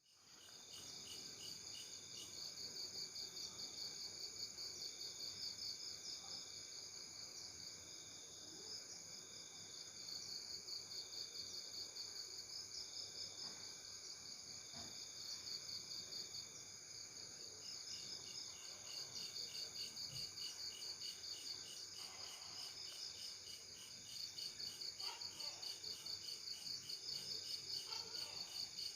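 Insects chirring: several overlapping high-pitched pulsing trills that run on steadily, with one shorter call repeating in dashes of about a second through the first half.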